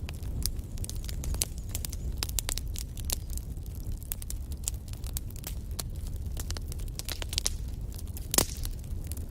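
Wood fire crackling in a fireplace: many irregular snaps and pops of burning logs over a steady low rumble of flame, with one louder pop near the end.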